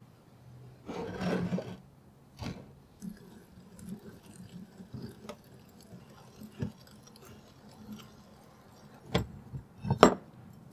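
Rusty cast-iron Dunlap bench vise being taken apart by hand: metal scraping about a second in, then small clicks and rattles as the handle and screw are worked and the movable jaw is slid out. Two sharp metal knocks near the end are the loudest sounds.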